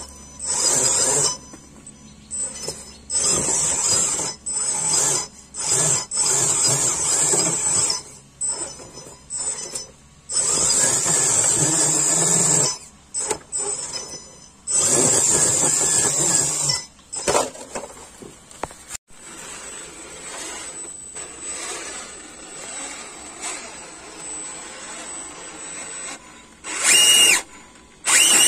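Electric motor and gears of an RC rock crawler whining in short, repeated throttle bursts as it climbs a steep dirt gully, starting and stopping every second or two, with longer pulls of about two seconds near the middle.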